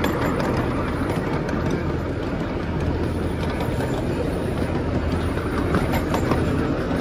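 A small open-car park train running steadily, heard from a passenger car: a constant rolling rumble with light clicking from the wheels on the track.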